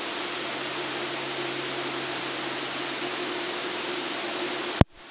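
Steady electronic static hiss with a faint low hum underneath, in place of the engine and cockpit sound, which have dropped out of the recording. It cuts off with a sharp click near the end.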